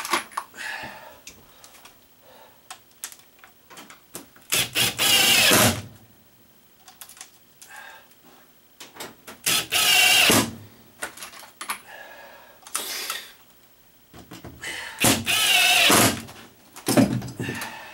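Cordless impact drill driving screws through galvanized sheet metal flashing into wood. It comes in three bursts of about a second and a half each, plus a shorter one near the end, with light clicks and taps in between.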